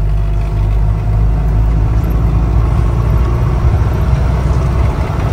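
Mahindra Scorpio's engine running, a steady low rumble.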